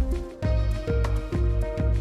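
Background music with a steady beat, strong bass and held melody notes; the music drops out briefly just before half a second in and comes straight back.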